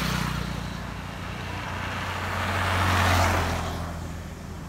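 Motor vehicles passing by on a road. One fades just after the start, then a louder one grows to a peak about three seconds in and fades away.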